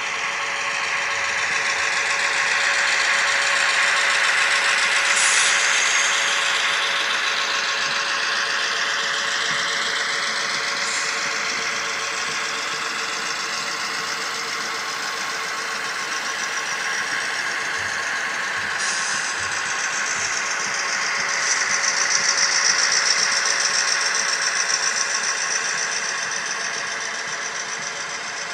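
HO scale model train running along the track: a steady mechanical whirr and rattle from the locomotive's motor and the cars' wheels. It swells louder twice, about a sixth of the way in and again about four-fifths of the way in.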